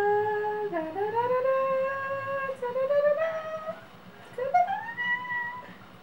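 A woman's voice singing wordless, drawn-out "ooh" notes in excitement: a held note that dips and slides up, a long wavering note, then a short rising note near the end.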